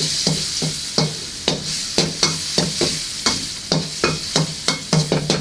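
Minced garlic sizzling in hot oil in a wok while a metal wok spatula scrapes and knocks against the wok about three times a second, each stroke ringing briefly.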